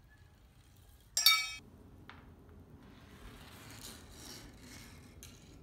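A glass marble on a plastic toy marble-run track. About a second in it strikes something that gives one bright, ringing clink; a small click follows, then the marble rolls faintly along the rail.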